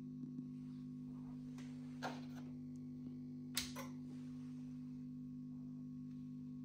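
Steady low mains hum from the running Neuberger RPM370 tube tester, with two faint clicks about two and three and a half seconds in.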